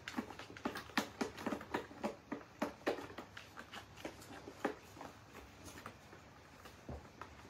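Kittens play-fighting on a carpet-covered scratching ramp: rapid taps, scuffs and scratches of paws and claws, busiest in the first three seconds and thinning out after.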